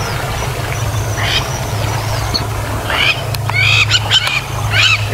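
Short, high-pitched chirping calls of African wild dogs: a few scattered at first, then several in quick succession from about three seconds in, over a steady low hum.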